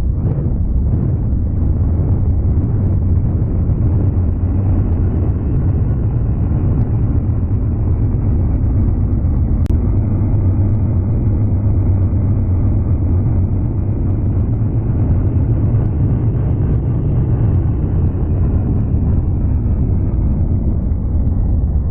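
Loud, steady, muffled rumble of low noise with no clear pitch, swelling slightly twice.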